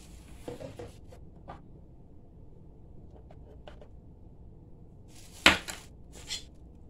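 Plastic packaging rustling and power cords being handled on a countertop, with small clicks, then one sharp loud knock about five and a half seconds in and a smaller one shortly after as the cord's plug and the lunch box are set down.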